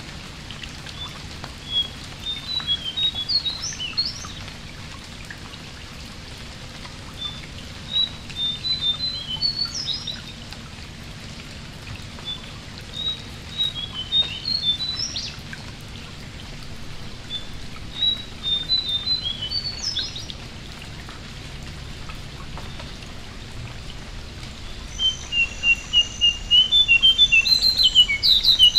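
Male jongkangan songbird singing: short phrases of quick chirping notes every five or six seconds, each ending in a rising note, then a louder, faster run of chirps near the end. Under the song is a steady hiss of rain falling on the mangrove water.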